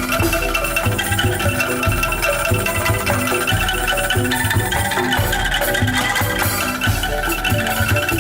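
Bamboo calung and angklung street band playing an upbeat dangdut koplo-style tune: quick struck bamboo notes over a steady, driving low beat.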